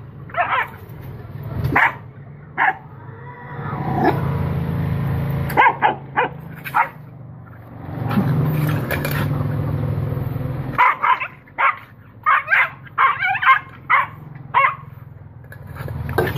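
A puppy barking at a macaque in short, sharp yaps, with a quick run of yaps in the last few seconds. A low steady rumble sits underneath for a few seconds at a time in the middle.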